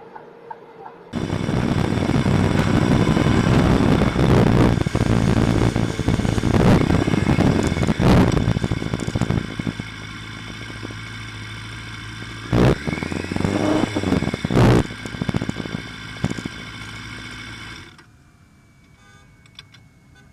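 Motorcycle engine running loud and close to the camera, with several sharp knocks and clatter, then cutting off abruptly near the end.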